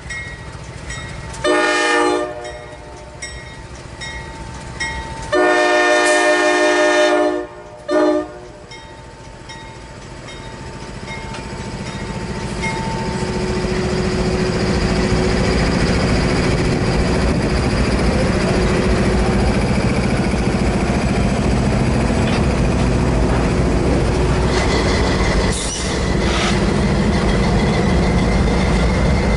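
Freight locomotive air horn sounding three blasts of several notes together: a short one about two seconds in, a long one around six seconds, and a brief one near eight seconds. Then the passing diesel locomotives and a string of empty autorack cars rumble by, growing louder from about twelve seconds on, with a single clank near the end.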